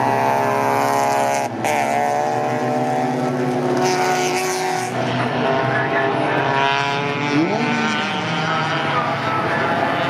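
Several classic racing cars' engines running hard together through a corner, their overlapping notes rising and falling with throttle and gear changes. One engine note drops sharply about one and a half seconds in, and another quickly rises and falls back near the three-quarter mark.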